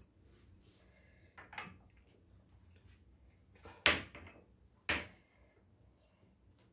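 Kitchen items being handled during cooking: three short knocks, a softer one about a second and a half in, the loudest near four seconds in and another just before five seconds.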